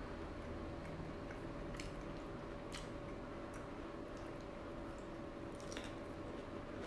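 Faint chewing and wet mouth clicks of a person eating broccoli, with a few sharp ticks scattered through, over a steady low hum.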